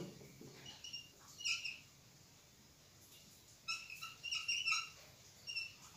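Marker tip squeaking on a whiteboard while writing: faint, short high squeaks, a couple early on and a quick run of them about four seconds in.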